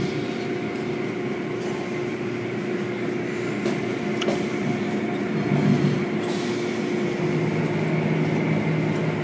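Automatic tunnel car wash machinery running while foam is laid on and cloth curtains sweep over a truck: a steady hum of motors with a wash of spraying water. A lower hum joins about seven seconds in.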